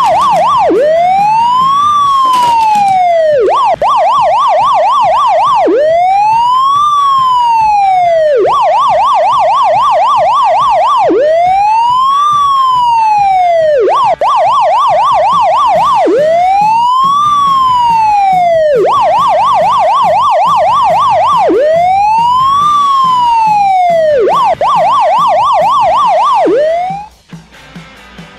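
Electronic emergency-vehicle siren alternating a rapid yelp with a slow rising-and-falling wail, switching about every two and a half seconds. It cuts off sharply about a second before the end, leaving a much quieter sound.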